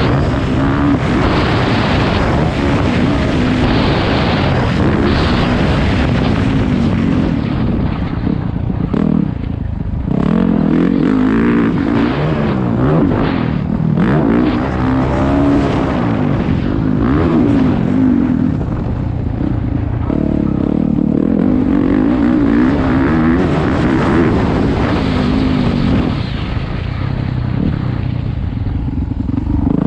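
Motocross dirt bike engine being ridden hard round a track, its revs climbing and dropping again and again through gear changes and throttle, with wind noise on the on-board microphone.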